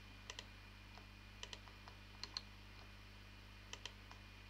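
Faint computer-mouse clicks, about four quick press-and-release pairs spaced roughly a second apart, over a low steady electrical hum.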